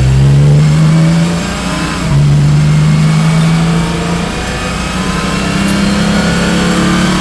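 Porsche 718 Cayman GT4 Clubsport's flat-six engine under hard throttle, heard from inside the car: it lifts off about a second and a half in, comes back on the throttle at 2 seconds, eases again around 4 seconds and then builds steadily out of the corner.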